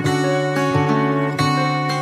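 Background music: pitched notes over a steady, evenly paced bass pulse.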